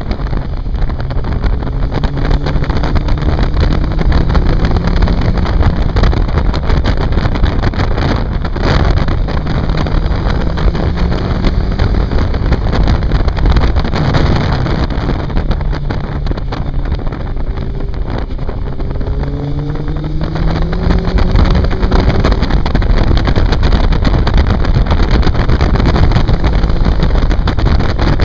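Motorcycle engine under way, its note climbing as it accelerates several times and dropping back, under a heavy rush of wind on the bike-mounted microphone.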